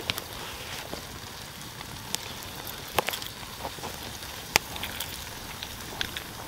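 Small wood campfire crackling: a steady hiss with sharp, irregular pops, the loudest a little past halfway through.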